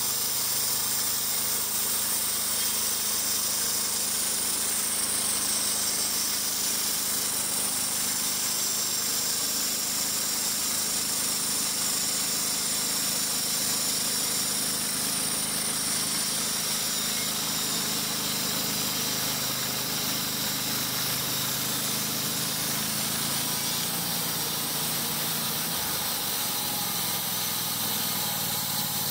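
Wood-Mizer LT35 portable band sawmill running steadily, its engine driving the band blade through a cut along the log, with a constant hiss over the engine hum. The engine note shifts slightly a few seconds before the end.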